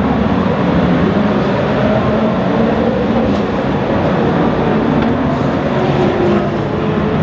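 Several race car engines running at once, a steady, loud mix of engine notes drifting slowly up and down in pitch.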